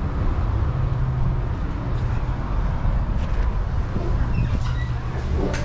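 Steady low rumble of wind and handling noise on a body-worn camera while walking, with a glass shop door opening near the end, its latch giving a sharp click.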